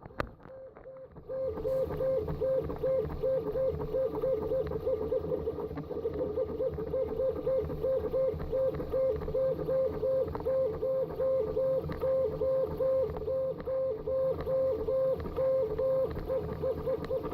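CTC 3D printer running a print, its stepper motors whining in a steady rhythm that flips back and forth between two close pitches as the print head moves to and fro. The whine starts about a second in.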